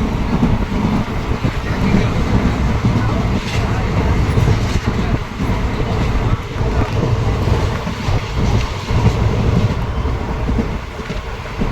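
Passenger train running at speed: a steady, loud low rumble with rattling of the carriage and wheels on the rails.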